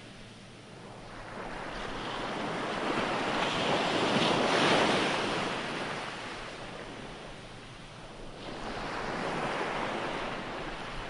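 Ocean waves washing up on the shore. The surf swells to a peak about halfway through, ebbs away, then rises again with the next wave near the end.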